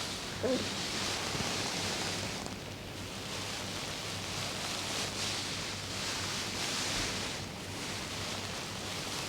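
Fingers working through hair on the scalp in a dry head spa massage: a soft rustling that swells and fades every second or two, over a steady low hum. A brief faint tonal sound comes about half a second in.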